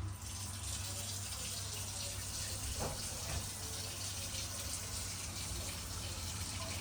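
Water running steadily, a rushing hiss that starts suddenly.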